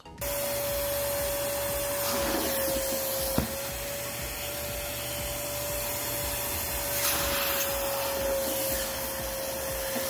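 Fujihama wet-and-dry vacuum running steadily, a rushing suction noise with a steady motor whine whose pitch sags slightly now and then as a clear plastic deep-cleaning nozzle is pressed and drawn across soapy, dampened sofa fabric to suck up the liquid. A small click about three and a half seconds in.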